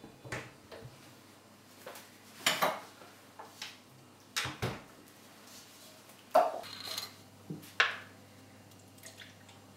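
Kitchen handling sounds: a series of sharp knocks and clacks as a wooden cupboard is opened and a plastic cup and milk bottle are picked up and set down. Near the end, milk is poured into the plastic cup.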